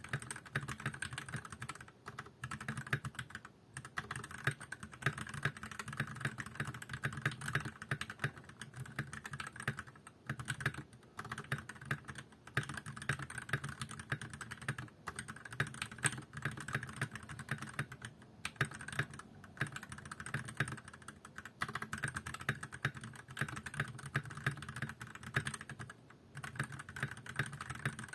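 Continuous fast typing on a Tecware B68 mechanical keyboard fitted with OA linear switches that are lubed with Krytox 205G0 and filmed, under double-shot keycaps, with foam in the case. The keystrokes run as a dense clatter, broken by short pauses every few seconds.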